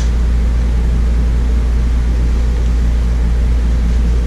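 Steady low mechanical hum with an even rushing noise over it, from a running machine such as the room's air conditioning, and a brief click at the very start.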